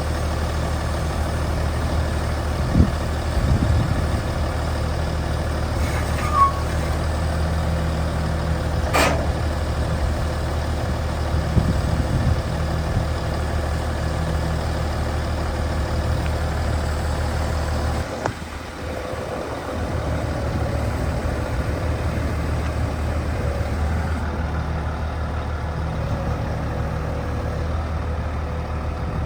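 Diesel engine of a Daewoo concrete pump truck running steadily at low revs, with a few sharp knocks in the first twelve seconds and a brief dip in the hum about eighteen seconds in.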